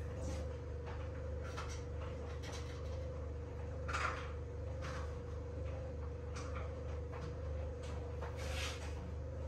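Light knocks and clatter of food being prepared at a kitchen worktop, a short sharp clack every second or so with the loudest about four seconds in, over a steady low hum.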